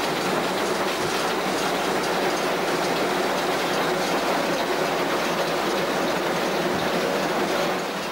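Steady running noise heard on the footplate of a Tr5 steam locomotive under way: a continuous rush of wheels on rail, running gear and steam.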